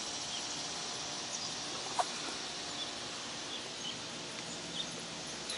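Outdoor garden ambience: a steady high hiss of insects, a few faint short bird chirps, and a single click about two seconds in.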